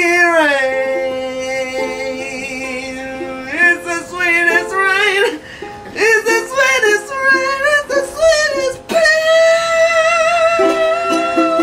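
A voice singing long wordless notes that slide and waver, over plucked ukulele.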